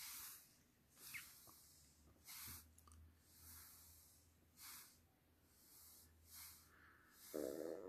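Near silence: room tone with faint, soft breath-like puffs about once a second, and one brief louder sound near the end.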